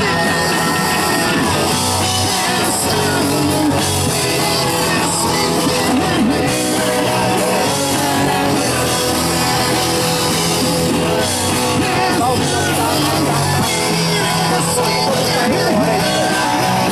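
Hardcore punk band playing live, loud and dense, with distorted electric guitar, bass and drums.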